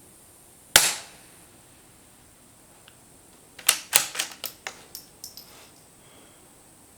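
A suppressed .22 LR rifle shot from a Ruger Precision Rimfire: one sharp report just under a second in, with a short decay. About three seconds later comes a quick run of about nine metallic clicks, fading over two seconds: the bolt being worked to chamber the next round.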